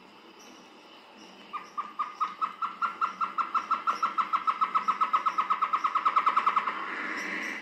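Antbird song: a run of about thirty short, evenly pitched notes that speed up and grow louder over some five seconds, ending in a brief harsh rasp.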